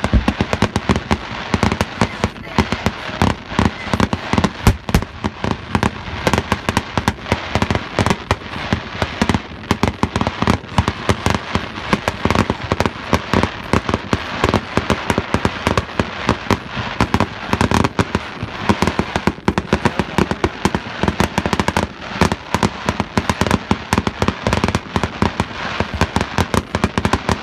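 Fireworks display going off in a rapid, unbroken barrage of bangs and pops, many per second with no pause.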